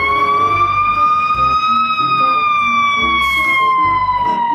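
Fire engine siren wailing: one long wail that rises slowly for about two seconds, then slowly falls.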